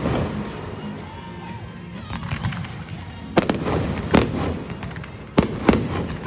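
Fireworks bursting: a loud bang at the start, then a quick run of about four booms between three and a half and six seconds in, with crackling and rumbling echoes in between.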